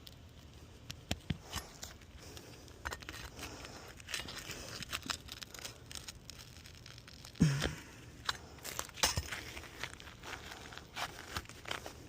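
Asphalt roof shingles being pried up by hand: irregular crackling, scraping and ripping as the sealed-down shingles tear instead of lifting, because the adhesive strip has bonded them to the course below. A brief grunt-like voice sound comes about seven seconds in.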